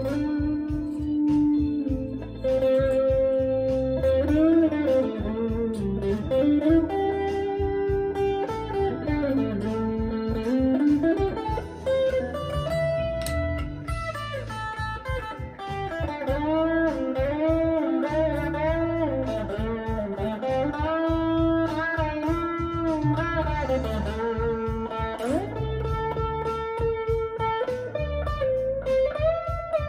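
Harley Benton CST-24T P90 electric guitar playing a lead melody with frequent string bends and slides, over a backing track with drums and bass.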